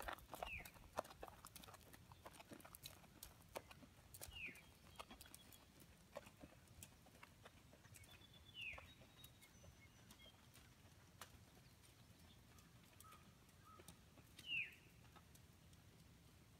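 Faint hoofbeats of a ridden horse on a sand arena, thinning out over the first few seconds as the horse moves away. A bird gives four short falling whistles several seconds apart; the last one, near the end, is the loudest.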